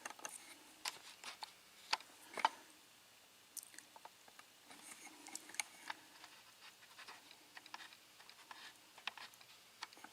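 Faint, irregular light clicks and taps of small metal lock pins and tools being handled and sorted on a work surface.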